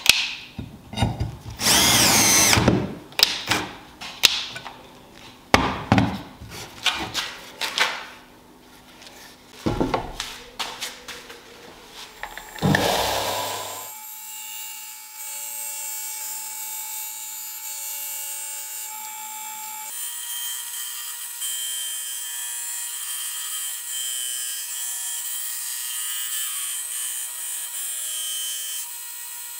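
Power drill driving screws into a wooden block in repeated short bursts. Then, about halfway through, a belt grinder grinding the bevel of a steel blade made from an old file, a steady high hiss.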